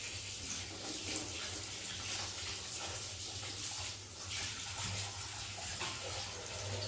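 Kitchen tap running steadily while raw chicken is washed and handled under the water.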